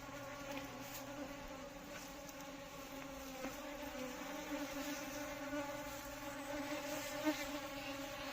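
Indian honey bees (Apis cerana indica) buzzing together in a steady, even hum.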